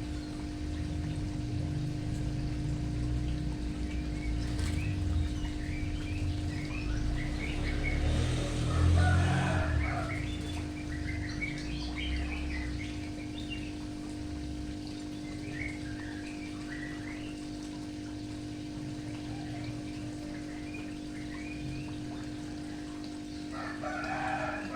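Birds chirping and calling, with a scatter of short high chirps throughout and two louder calls about nine seconds in and near the end, over a steady hum.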